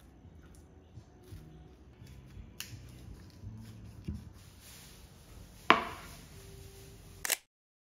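Soft kitchen handling sounds of sandwiches being put together on a wooden chopping board, with a butter knife spreading cream cheese and a pepper grinder turning. About six seconds in, one sharp knock with a brief ring as a plate is set down on a wooden table, and the sound cuts off abruptly near the end.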